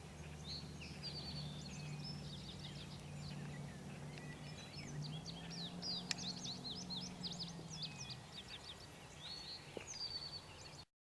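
Many small birds chirping and calling in open country, over a faint low steady hum that fades out about eight seconds in. A single sharp click sounds about six seconds in, and the sound cuts off abruptly just before the end.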